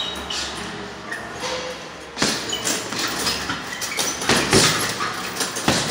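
Boxing-gloved punches landing on a hanging heavy bag: a few dull thuds, the first about two seconds in and more in the second half.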